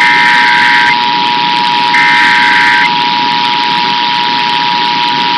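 Emergency Alert System two-tone attention signal sounding steadily, with two bursts of the warbling digital SAME header data laid over it, each about a second long, the second starting about two seconds in. It is the alert tone sequence that precedes a test message.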